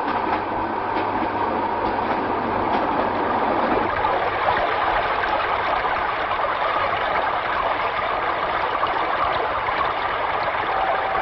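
Steady rushing of flowing river water, with a low hum underneath that fades out about four seconds in.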